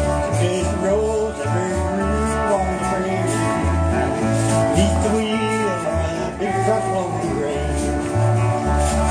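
Country band playing live: a walking electric bass line under guitars and a steel guitar with sliding notes.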